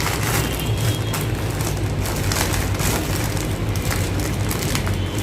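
Packaging crackling and tearing as a parcel is cut and ripped open: a run of short scratchy crinkles over a steady low hum.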